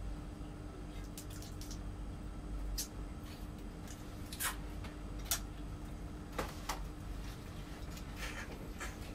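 Eating at a table: scattered short clicks and taps of food being picked apart by hand and touching plates, about seven in all, over a steady low hum.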